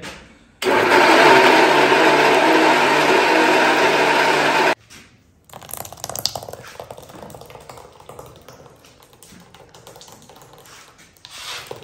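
Electric mixer grinder running at full speed for about four seconds, grinding momo achar into a paste, then switched off and stopping abruptly. Fainter light clicks follow.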